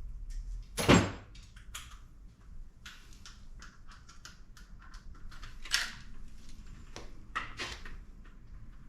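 Scattered metallic knocks and clinks of hand tools and parts while the tensioner is taken off a Nissan SR20DET engine, with the loudest knock about a second in and a few more near the end.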